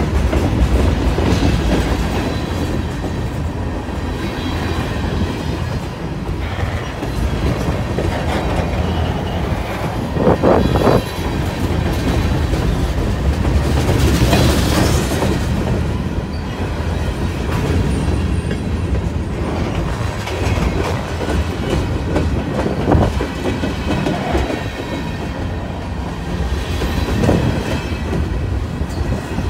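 Freight cars of a long CSX manifest train rolling past close by: a steady rumble of steel wheels on rail with clickety-clack over the rail joints. A loud bang about ten seconds in.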